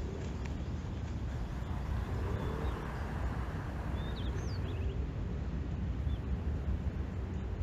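Outdoor city-park ambience: a steady low rumble, with a few short high bird chirps about four seconds in.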